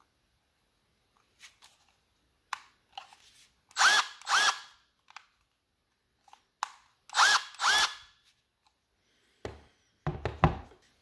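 Milwaukee M12 FUEL PEX expansion tool run dry with no pipe on the head: four short motor whirs in two pairs about three seconds apart, each rising and falling in pitch, with scattered handling clicks. Near the end, a few knocks as the tool is set down on the wooden bench.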